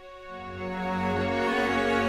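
Background music of sustained chords that swell in loudness over the first second, then hold.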